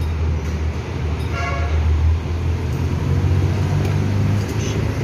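Steady low rumble of motor traffic, with a brief horn toot about a second and a half in.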